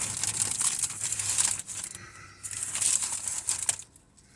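Paper wrapper of a McDonald's McDouble crinkling and rustling as the burger is unwrapped, in two spells with a short pause between, stopping shortly before the end.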